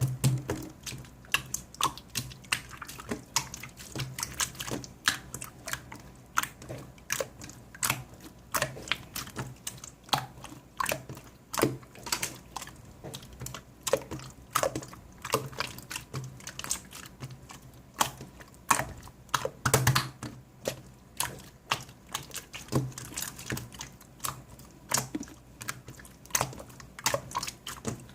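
Slime being pressed and squeezed by hand, making an irregular run of small sharp clicks and pops, several a second, some with a dull low thump beneath.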